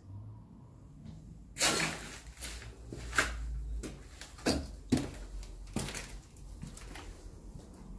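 Footsteps crunching and knocking over plaster debris on a hard floor: a string of sharp steps about one a second, the first the loudest, over a low rumble.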